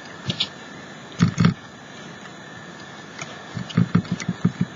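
A sponge dabbing ink: soft pats on an archival ink pad, then quick dabbing through a plastic punchinella stencil onto lace trim. Two taps come about a second in, and a fast run of taps follows near the end.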